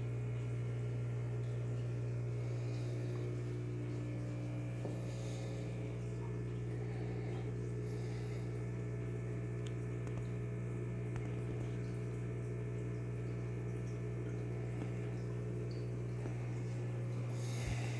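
Steady low hum of running aquarium equipment, with faint bubbling from an air stone in the tank. A brief knock comes near the end.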